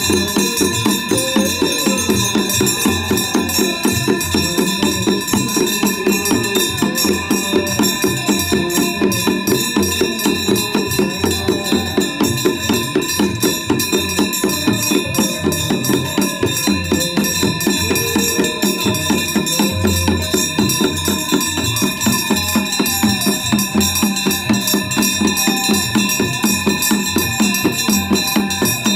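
Hindu aarti devotional music with a fast, even beat of drums and jingling, tambourine-like percussion over steady ringing tones.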